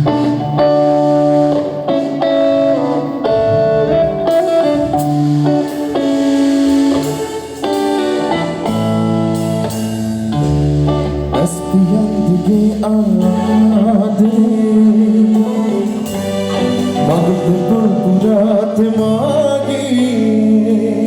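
A live band playing a song, with guitar and a singing voice over held bass notes that change every second or so.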